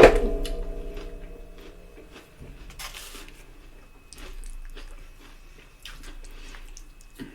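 A sharp clink of tableware struck right at the start, ringing with several tones that fade over about two seconds, then close-up wet chewing and mouth smacking of food for the rest.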